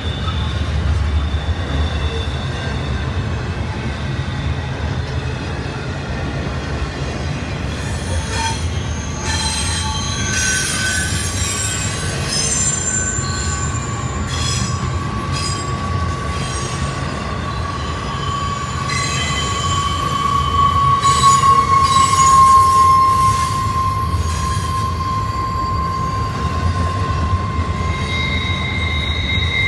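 Double-stack intermodal freight cars rolling past with a steady low rumble and squealing wheels. Several high squeals come and go from about a quarter of the way in, and a long steady squeal settles in, loudest about three-quarters through.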